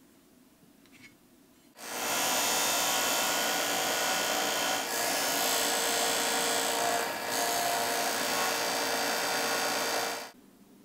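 Disc sander running while a small piece of plastic is held against the spinning disc and ground down, a steady grinding hiss. It starts abruptly about two seconds in, dips briefly twice, and cuts off suddenly about half a second before the end.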